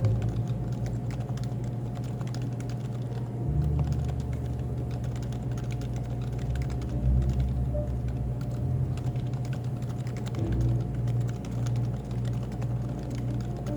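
Happy Hacking Keyboard (HHKB) being typed on without pause, a rapid stream of key clicks. Beneath it is café background sound with a low bass line that changes note every few seconds.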